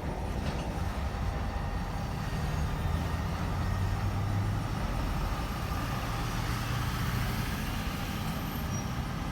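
CSX freight train cars rolling past: a steady low rumble of steel wheels on the rails.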